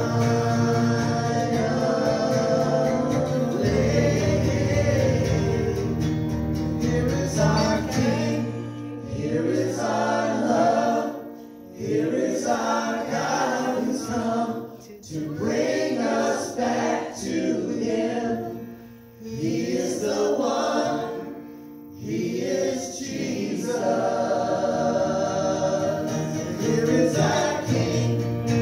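Live worship music: voices singing a worship song over strummed acoustic guitar. Through the middle the sung phrases come in shorter bursts with brief pauses between them, and fuller sustained singing returns near the end.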